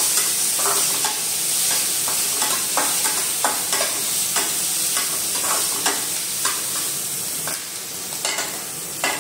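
Chopped vegetables sizzling in hot oil in a metal kadai while a spatula stirs and scrapes them across the pan, about two scrapes a second over a steady hiss.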